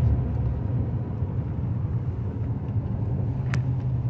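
Truck driving, heard from inside the cab: a steady low engine hum over road and tyre rumble, with one short click about three and a half seconds in.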